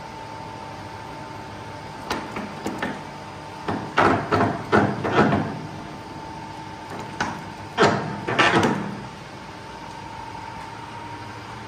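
Irregular sharp knocks and clatters in three bunches: a few light ones about two seconds in, then two louder runs near the middle and about two-thirds of the way through. A steady faint hum runs underneath.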